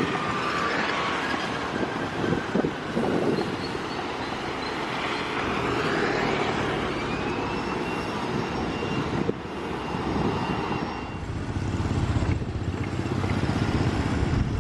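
Road traffic going by: vehicles pass in a few slow swells, with a faint engine whine rising in pitch now and then.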